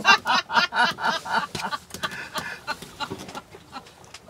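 Women laughing heartily in quick, rhythmic ha-ha bursts that trail off about two to three seconds in.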